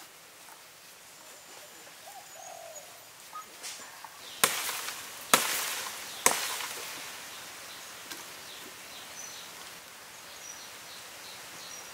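Three sharp knocks about a second apart, a knife chopping into the bark of a thin tree branch to tap its white sap. Birds chirp faintly around them.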